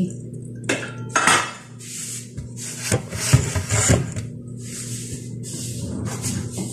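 Stainless-steel pot lid and steel pot clanking: a few sharp knocks and some scraping as the lid is lifted off and the pot rim handled, over a steady low hum.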